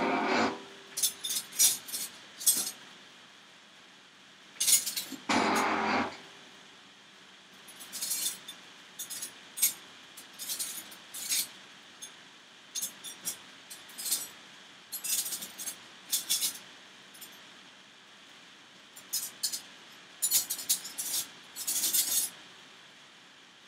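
Metal cutlery and dishes clinking: scattered short, sharp clinks and rattles throughout, with two louder, longer clattering noises, one at the start and one about five seconds in.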